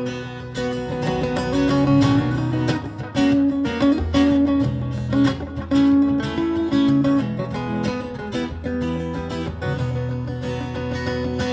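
Baritone guitar played live through effects: a steady run of picked and strummed chords over a low bass line, with no singing.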